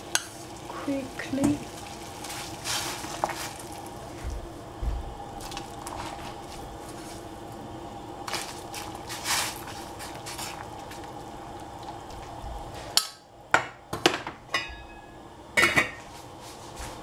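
Water boiling in a stainless steel saucepan as chicken pieces go in to blanch, with a few clinks of utensils. About thirteen seconds in comes a run of sharp metal clanks with a short ring as the steel lid is set on the pot.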